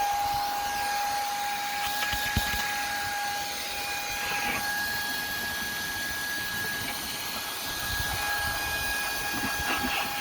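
Shark IZ251 cordless stick vacuum running steadily with a high motor whine and a rush of air while it vacuums.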